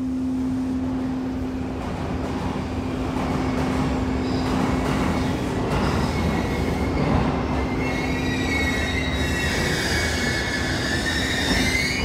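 A train's rumble builds, and a high-pitched metallic squeal rises over it in the last few seconds, as of a train running into a station. Under it a steady low hum tone carries on and fades out near the end.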